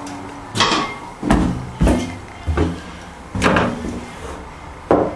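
A series of six sudden knocks and thumps inside a passenger railway car, coming unevenly about two-thirds of a second apart, the last a little later.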